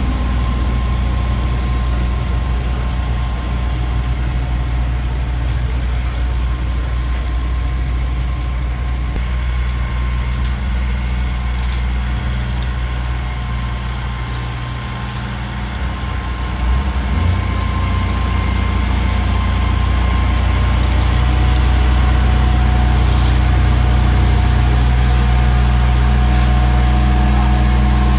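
Heavy diesel road-paving machinery running with a steady low engine drone. It eases off a little about halfway through, then swells louder again and holds.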